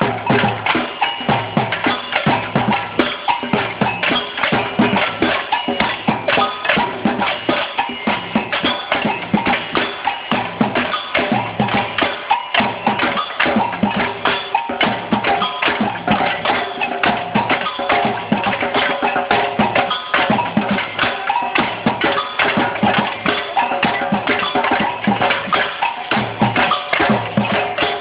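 Batucada samba percussion band playing a steady, driving rhythm of drums and bells, with deep bass-drum beats under dense, fast strikes.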